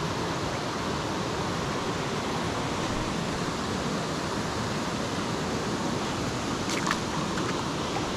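Steady rush of a small creek's flowing water, an even hiss. A few short clicks about seven seconds in.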